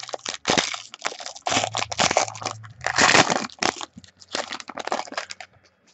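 Foil wrapper of a trading card pack being torn open and crinkled by hand, in irregular crackling bursts that stop shortly before the end.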